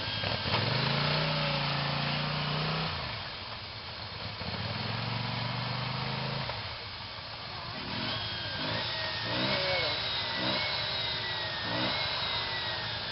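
Quad bike (ATV) engine revving under load in a muddy ditch: two long held revs in the first half, then a string of short rev blips rising and falling from about two-thirds of the way in.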